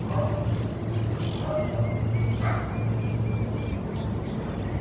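Steady low hum, the persistent environmental 'Hum' the recordist documents, here at low intensity. Faint high chirping calls sound over it, a quick run of short repeated notes near the middle.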